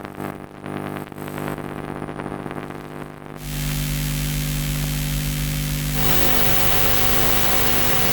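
Designed electrical buzz and hum interference tones. First a steady hum with a stack of overtones and a fluttering crackle. About three and a half seconds in, a louder buzz with a deep hum and a hiss cuts in, and it shifts to a brighter, noisier buzz about six seconds in.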